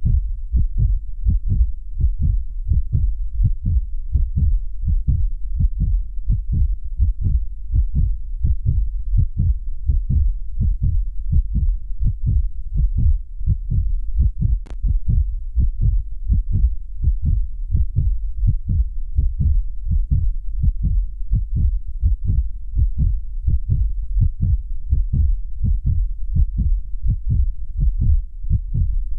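Human heartbeat: a steady, even rhythm of deep low thuds with no pauses.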